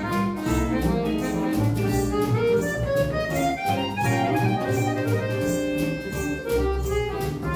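A small acoustic band of double bass, archtop guitar, a small plucked lute and accordion playing a tune together, with the strings keeping a steady strummed beat.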